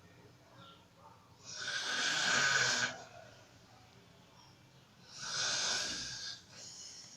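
A sleeping woman snoring: two snores about three and a half seconds apart, each lasting about a second and a half, the second followed by a shorter, fainter one.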